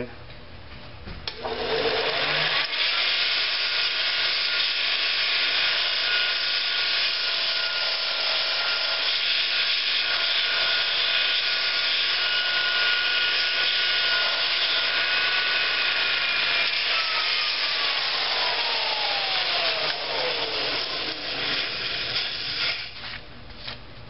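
Bench grinder running a Scotch-Brite belt on a Multitool belt attachment, with a steel lawn mower blade held against it to scour off the junk: a steady abrasive rubbing hiss over a constant whine. Near the end the whine glides down in pitch as the grinder spins down, and the rubbing stops.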